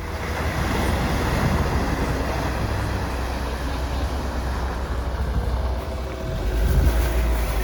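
Off-road vehicle driving hard over rough ground, a dense engine and tyre noise with a deep rumble that swells about six seconds in.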